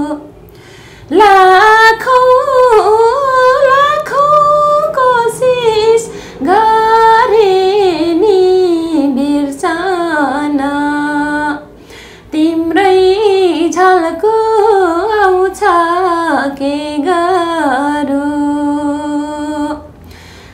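A woman singing a slow Nepali song unaccompanied, in three long phrases with wavering, ornamented pitch and short breaths between them.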